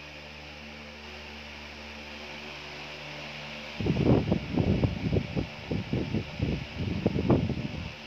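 A steady low hum with a faint hiss. About four seconds in, a loud run of irregular, muffled low thumps and rustles starts and lasts about four seconds before the hum is left alone again.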